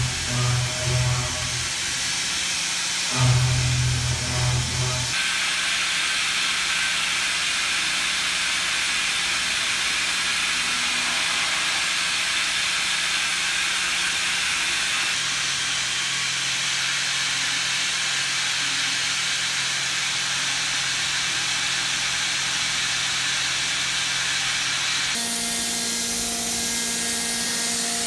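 Hwacheon SMART Ua vertical machining center milling a KP4M steel mold block, with the steady hiss of the oil-mist coolant spray and the cutting. In the first five seconds heavy roughing cuts come in two loud low-pitched bursts. After that the small tool cuts under an even hiss, and near the end a steady tone of several pitches joins in.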